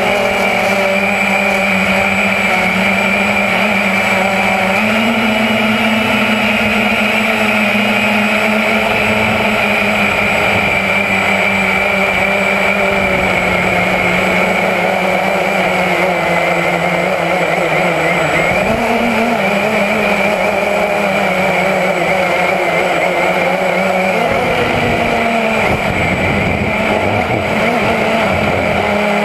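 Walkera QX350 quadcopter's motors and propellers running in flight, a loud steady buzz heard close up from its own onboard camera. Its pitch steps up and down a little now and then.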